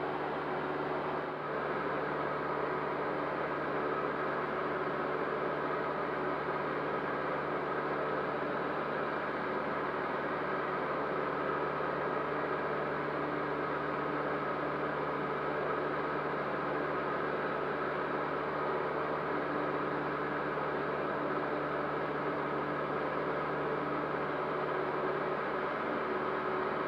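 Cessna 152's four-cylinder Lycoming O-235 engine and propeller running steadily, heard inside the cockpit: an even rumble with a few steady tones through it.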